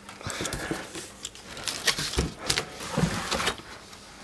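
Cardboard box being opened by hand: the flaps rustle and scrape, with irregular small knocks and taps.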